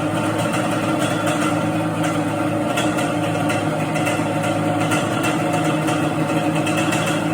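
Yamaha Banshee's parallel-twin two-stroke engine idling steadily, its twin carburetor slides freshly synchronized.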